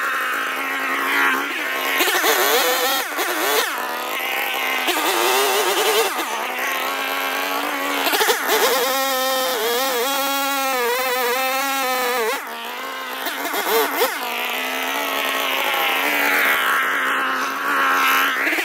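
A small engine running throughout, its pitch wavering up and down as its speed changes, steadiest and strongest around the middle.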